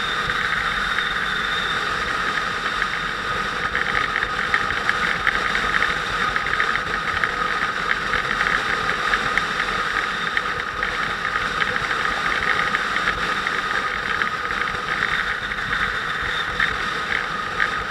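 Motorcycle running steadily at cruising speed, with an even rush of wind and road noise and a steady high whine.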